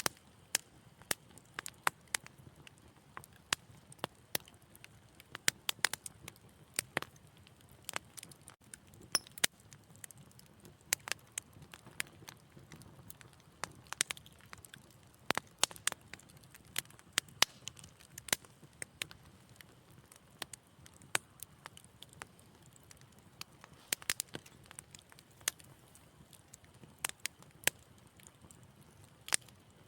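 Wood fire crackling in a fireplace: irregular sharp pops and snaps, several a second, over a faint low hiss of burning.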